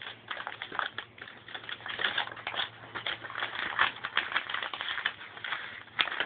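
A large folded paper map being unfolded and smoothed flat by hand, crinkling and rustling in quick, irregular crackles.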